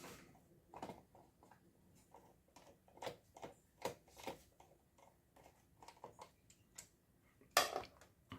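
Irregular small metal clicks and taps of a screwdriver driving a hard drive mounting screw into a desktop PC case, with a louder clack near the end.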